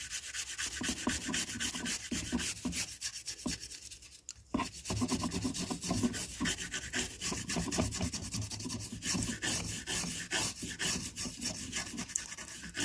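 Rapid back-and-forth scrubbing over a home theatre amplifier circuit board, cleaning off leftover solder paste, with a short pause about four seconds in.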